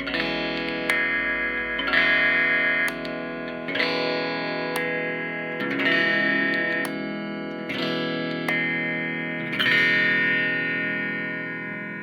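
Electric guitar strummed through an effects unit with light distortion: six chords struck about two seconds apart, each left to ring, the last one fading away.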